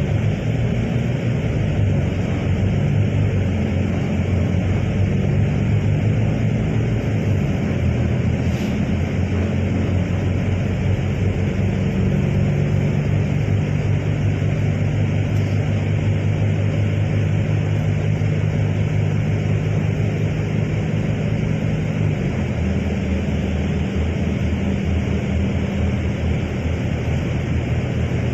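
A motor vehicle running, with a steady engine hum over road noise. The hum changes pitch about twelve seconds in and again about twenty-two seconds in.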